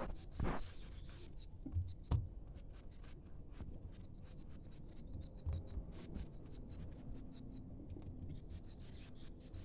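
Hands rolling a log of fekkas dough back and forth on a countertop: soft rubbing with many small ticks of palms and dough on the surface, and a couple of light knocks in the first two seconds.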